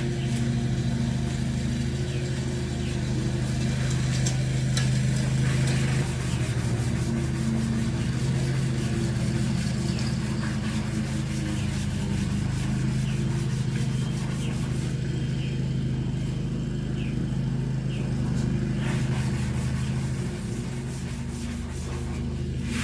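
Sandpaper rubbing along the fuller of a steel sword blade in repeated strokes, over a steady low hum.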